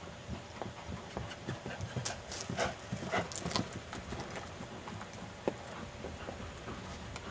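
Hoofbeats of a quarter horse gelding loping on dry pasture ground, loudest as it passes close by around three seconds in, then fading as it moves away.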